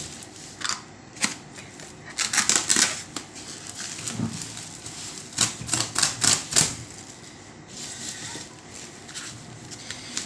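Polythene courier mailer bag crinkling and rustling as hands handle it, in runs of sharp crackles about two to three seconds in and again about five and a half to six and a half seconds in.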